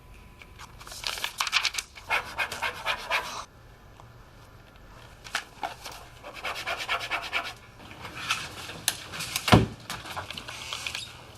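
Three bursts of rapid scratchy rustling, then a single heavy thump about nine and a half seconds in.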